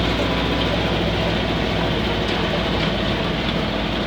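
LuAZ-969A's air-cooled V4 engine running steadily as the vehicle drives slowly, with road noise.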